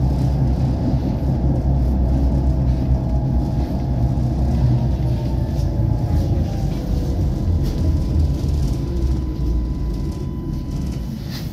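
Tram running along its track, heard from on board: a steady low rumble of wheels on rail, with a faint motor whine that glides down in pitch midway as the tram eases off.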